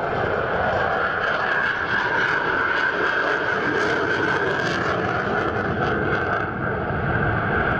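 Saab JAS 39 Gripen fighter jet flying overhead, its single jet engine giving a steady, continuous rushing noise with a brief dip just before the end.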